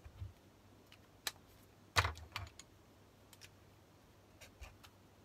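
Light plastic clicks and knocks of marker pens being handled and set down as one marker is swapped for another, with the loudest cluster of knocks about two seconds in and a few small ticks after.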